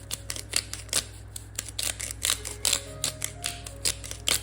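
Pepper mill being twisted to grind pepper: a run of short, irregular crunchy clicks, about three or four a second.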